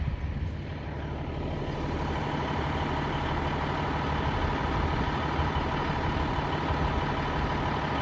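A vehicle engine idling steadily, a low hum that grows slightly louder over the first couple of seconds and then holds even.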